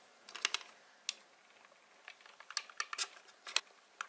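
Light clicks and taps of a plastic toy ice cream machine being handled as its press is pushed down to extrude Play-Doh, a few at first and a quicker run of clicks in the second half.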